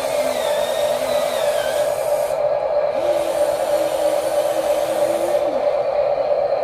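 Small electric motors and gearboxes of radio-controlled toy construction machines whirring steadily, with faint motor tones sliding in pitch as the models move and work.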